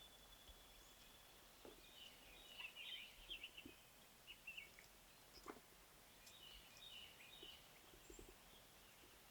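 Faint songbirds chirping and twittering in short high phrases, loudest about a third of the way in and again past the middle, over quiet outdoor background with a few soft clicks.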